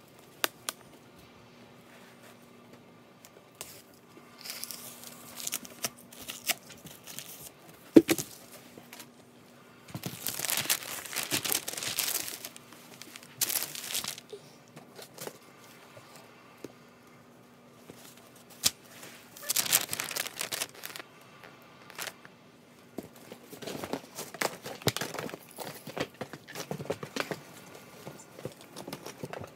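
Christmas wrapping paper being handled while a present is wrapped: irregular bursts of crinkling, rustling and tearing paper, with one sharp knock about eight seconds in.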